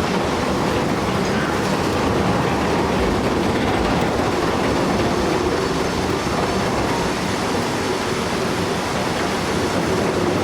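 Heavy diesel machinery running, a steady loud rumble.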